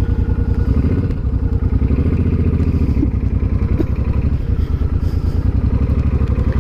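Suzuki cruiser motorcycle engine running at low revs with an even, rapid exhaust pulse as the bike pulls away slowly from a standstill.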